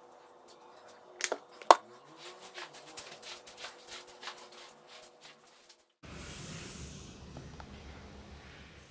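Broom sweeping a tiled floor: quick scratchy strokes and clicks, with a few sharp knocks about a second in. From about six seconds in, a steadier low rustle and rumble takes over.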